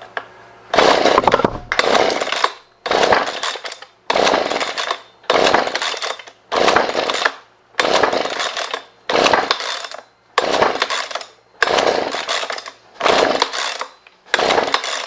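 Husqvarna 125B two-stroke leaf blower being pull-started over and over at half choke: about a dozen quick recoil-starter pulls, roughly one a second, each cranking the engine, which never fires. The spark plug is soaking wet.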